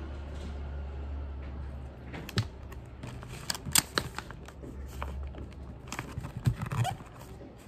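Hands peeling a paper sticker off its backing and pressing it onto a card envelope on a tabletop: light rustling and a scatter of sharp clicks and taps, loudest about halfway through and again near the end.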